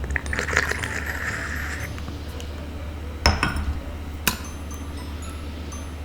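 Tableware clinking: light taps and scraping, then two sharp clinks about a second apart, the first with a brief high ring.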